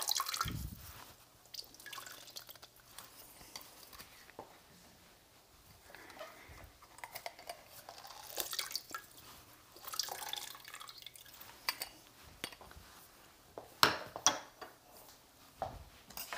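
Lime juice squeezed from a handheld citrus press, trickling and dripping into a pot of soup, with soft handling noises after it. Near the end come a few sharp knife taps on a plastic cutting board as cilantro is chopped.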